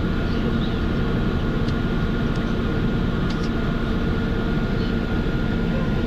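Steady low drone of a road vehicle driving, heard from inside its cabin, with a thin steady whine above the hum.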